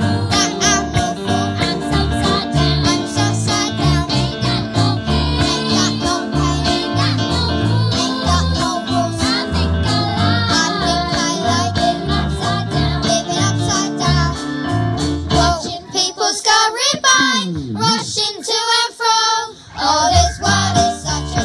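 A group of young girls singing a pop song together over instrumental accompaniment with a steady bass beat. About sixteen seconds in, the beat drops out and the voices carry on almost alone for a few seconds, then the beat comes back near the end.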